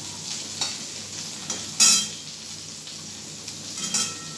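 Oil sizzling in a wok (kadai) at the end of frying fish, with several sharp metal clinks as a spatula scrapes the pan and the fried fish is lifted onto a steel plate. The loudest clink comes about two seconds in.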